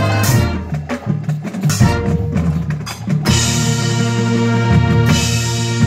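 Live marching band playing: sharp accented percussion hits with short gaps, then about three seconds in the full band, brass included, comes in with a loud sustained chord that holds.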